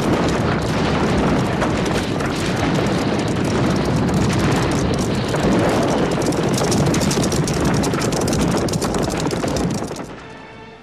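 Many horses galloping together, a dense, continuous clatter of hoofbeats that drops away about ten seconds in.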